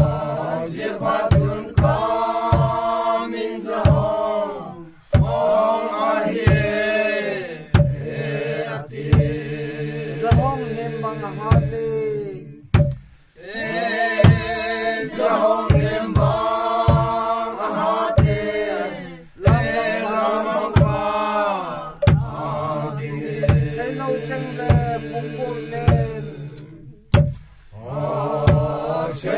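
A mixed group of men and women singing a traditional folk chant together, in phrases of several seconds with short breaks between them. Underneath runs a steady knocking beat of about two strokes a second.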